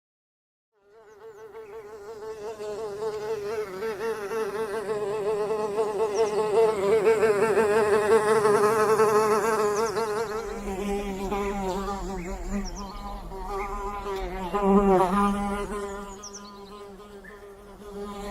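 A fly buzzing in flight, its pitch wobbling constantly. It starts after about a second of silence, swells to its loudest midway, fades, then swells again near the end. A second, lower buzz joins about ten seconds in.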